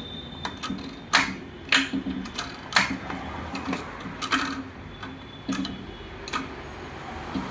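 Hyundai Aura manual gearbox being shifted through its gears by hand, its selector mechanism giving sharp metallic clicks and clunks about every half second to a second. The shifts are stiff because the gearbox is still dry, with no gear oil in it.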